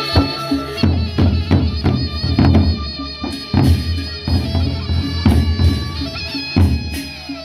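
Sasak gendang beleq ensemble playing: big double-headed barrel drums beaten in heavy, irregular strokes under a steady, held melody.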